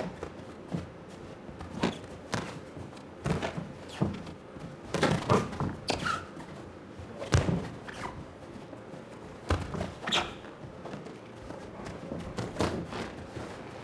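Boxing gloves landing punches during an exchange in the ring: irregular sharp thuds and slaps, about one a second, some coming in quick pairs.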